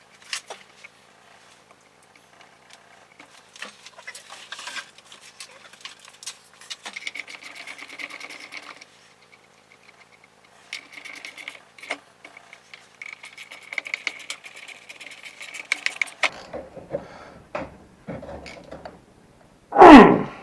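Ratchet wrench turning the bolts of a tractor thermostat housing: scattered clicks, then long runs of fast, even ratchet clicking. A single loud clunk near the end.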